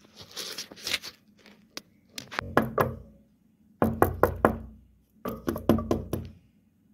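Rapid sharp knocks or taps in three short clusters, each a quick run of several strikes.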